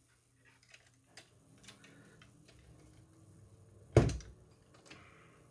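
Small clicks and handling noises of fingers working plastic parts and thin cables on a model car's chassis, with one sharp knock about four seconds in.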